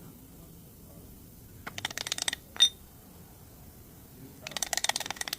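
Metal hand tools at work: two bursts of rapid metallic clicking, with a single sharp ringing clink between them.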